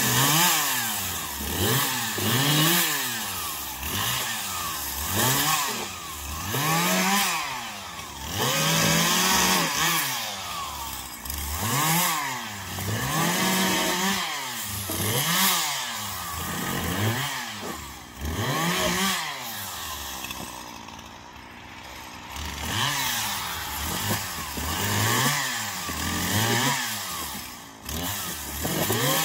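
Poulan Pro 5020 two-stroke chainsaw cutting the branches off a felled pine, revving up and dropping back again and again, about once a second. It settles into a lower, steadier run for a couple of seconds about two-thirds of the way through.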